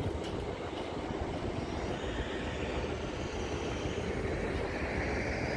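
Steady rumbling outdoor noise with no distinct events.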